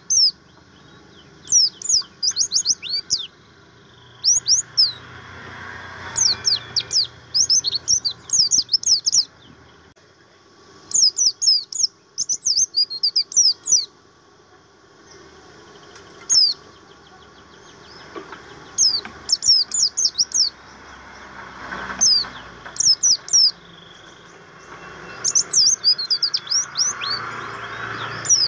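Pleci buxtomi white-eye singing: rapid bursts of high, thin chirping notes in phrases of one to three seconds, broken by short pauses.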